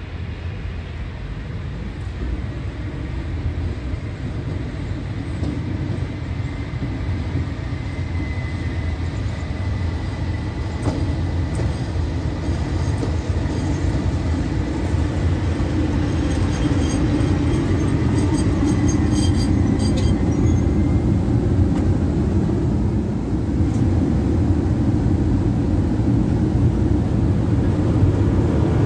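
PKP Intercity EU07 electric locomotive hauling a passenger train, approaching and running in along the platform, its rumble growing steadily louder as it nears. A thin high steady tone holds through the middle, with a run of faint sharp clicks shortly before it fades.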